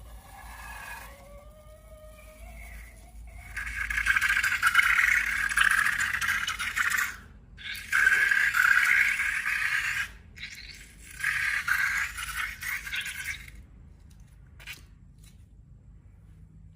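Slime-making ASMR scraping and rubbing sounds: three long rasping strokes, after a brief squeaky wavering tone in the first seconds.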